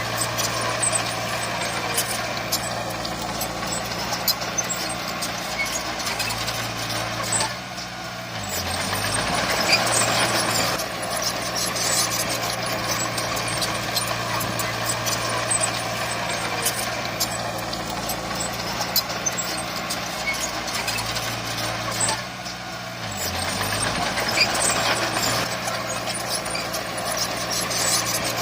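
Heavy diesel earthmoving machinery running steadily under load, with scattered small clicks and knocks. Twice the engine note drops briefly and then climbs back.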